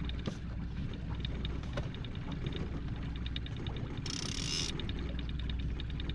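Outboard motor running steadily at trolling speed, with a fast run of light mechanical ticks over it and a brief hiss about four seconds in.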